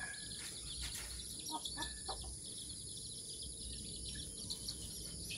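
A few faint, short chick peeps over a steady high background hiss, most of them between about one and a half and two seconds in.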